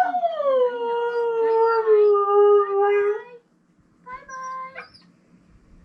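Husky howling: one long howl that starts higher, slides down and holds for about three seconds, then a shorter, level howl about a second later.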